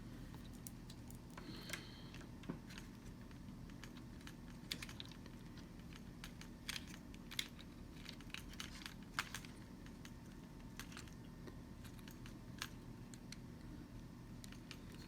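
Scattered small clicks and taps of hands working on small parts and wiring inside a food processor's base, irregular and bunched more closely in the middle, over a faint steady low hum.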